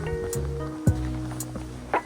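Background music with a steady beat: drum hits about twice a second over held bass and synth notes.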